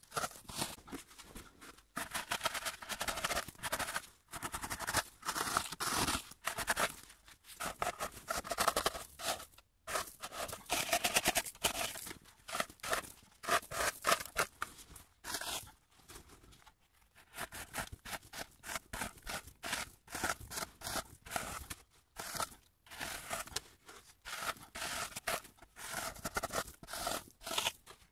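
A tool scraping and cutting into packed snow in rapid back-and-forth strokes, as when igloo snow blocks are cut and shaped. The strokes come in runs of a few seconds, broken by short pauses.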